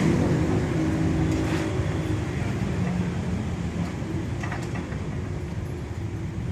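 A low motor rumble with a faint steady hum, slowly fading.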